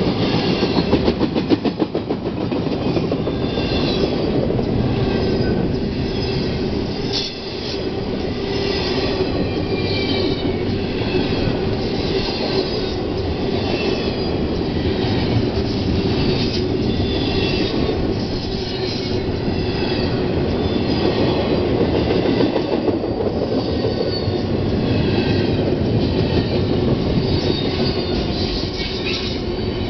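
Freight train's intermodal cars rolling past at speed: a steady, loud rumble and clatter of steel wheels on the rail. Short high squeals from the wheels recur about once a second, with a brief drop in the noise about seven seconds in.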